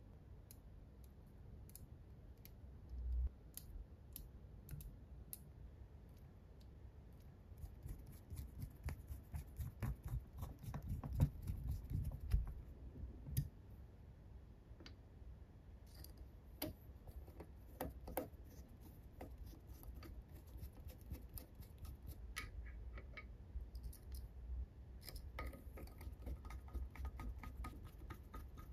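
Small metal engine-model parts being handled and fitted: light clicks and taps of tweezers, aluminium pieces and steel cam sprockets knocking together, with a quick run of clicks about a third of the way in. Near the end a hex key works a screw in a sprocket.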